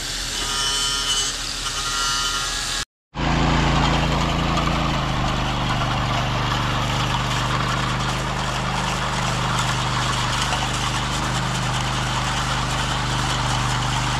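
An engine running steadily at a constant speed, with a noisy mechanical wash over its low hum. It follows a short cut, before which a higher whining machine sound is heard.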